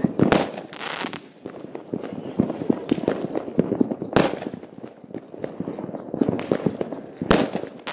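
Fireworks going off: sharp bangs of aerial shells bursting just after the start, about four seconds in and again near the end, over continuous crackling and popping from many more fireworks.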